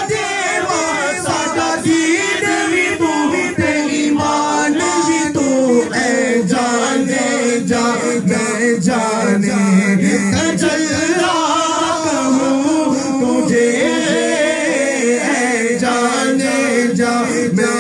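Two men singing an Urdu naat together without instruments, in long wavering melodic lines.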